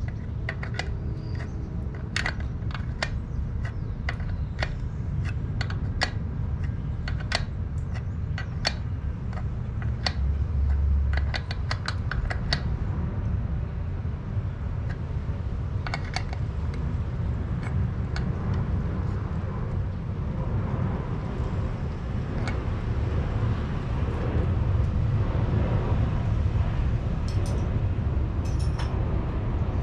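Irregular small metallic clicks and taps of hand tools working on the motorcycle's turn signal and headlight bucket mounts, coming thickly for the first dozen seconds and then only now and then, over a steady low hum.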